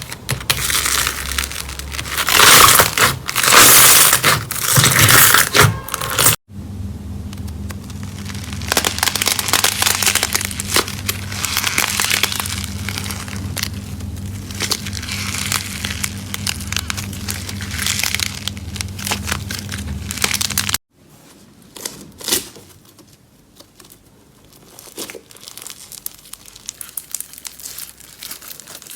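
Slime being pressed and squished by hand, with dense crackling and crinkling. The sound comes in three separate takes: loudest in the first few seconds, over a steady low hum in the middle one, and quieter near the end.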